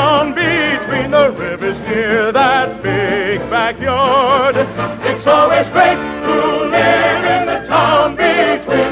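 Operatic-style singing with a wide vibrato over orchestral accompaniment, from an old radio broadcast recording with a narrow, dull top end.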